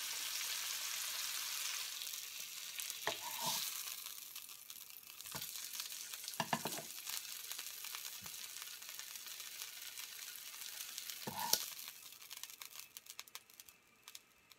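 Largemouth bass fillets sizzling as they fry in a pan, loudest for the first couple of seconds, then quieter and fading out near the end. A few short knocks sound over the sizzle.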